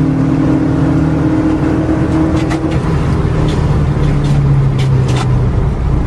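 Zhiguli (VAZ) four-cylinder petrol engine running at steady high revs, with a few short sharp clicks or knocks over it in the second half.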